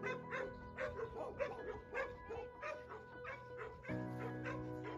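Background music with held chords that shift near the end, with short high dog yips and whimpers repeating over it every fraction of a second.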